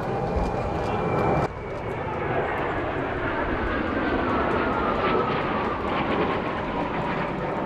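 Jet noise from the Blue Impulse team's Kawasaki T-4 jet trainers flying overhead in formation, a steady rushing sound with a whine that slowly falls in pitch as the jets move away. The sound changes abruptly about a second and a half in.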